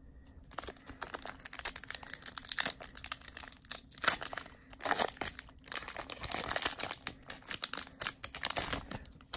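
Foil wrapper of a Pokémon trading card booster pack crinkling and tearing as it is ripped open by hand. The crackling starts about half a second in and goes on in irregular louder and softer spells.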